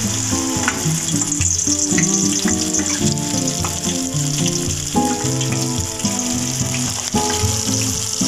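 Hot oil sizzling steadily as balls of banana-blossom batter deep-fry, under background music with a melody.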